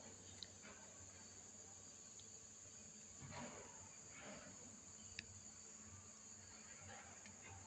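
Faint, steady high trill of crickets, with a couple of soft breathy swells about halfway through from a person sleeping sitting up.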